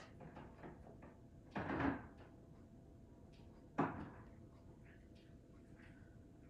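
A short scraping rustle lasting under half a second, then about two seconds later a single sharp knock, with faint small clicks around them.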